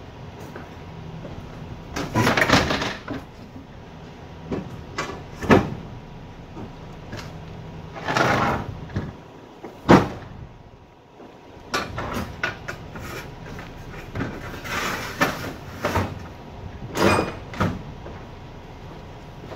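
Work noises inside an open-top trailer with a wooden floor and metal roof bows: scattered knocks and clanks with several longer scrapes, and two sharp knocks about five and ten seconds in.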